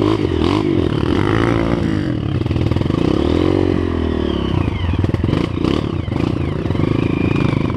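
Dirt bike engine revving up and down as it rides a muddy forest trail, its pitch rising and falling with the throttle. Some clattering knocks come about five to six seconds in.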